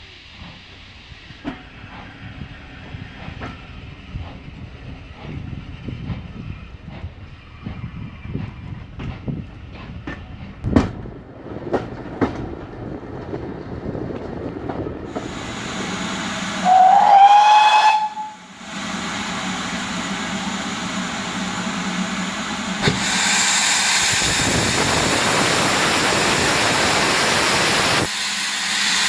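Train coaches rolling slowly with scattered clicks and knocks from the wheels and couplings. About two-thirds in a steam whistle gives one short blast, rising then holding for about a second and a half, followed by a steady hiss of steam from GWR Castle class 4-6-0 4079 Pendennis Castle that turns loud near the end.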